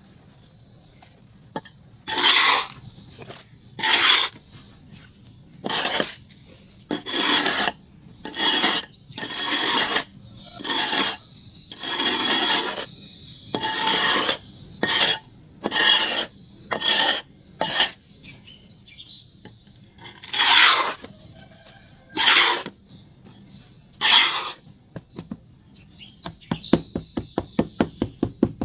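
Charcoal being scraped into shape: a series of separate gritty rasping strokes, each under a second long, followed near the end by a fast run of short scrapes.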